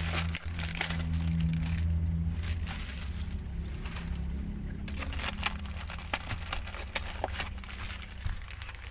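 A plastic courier mailer bag crinkling and rustling as hands handle it, with irregular crackles. A steady low hum runs underneath and fades after about five seconds.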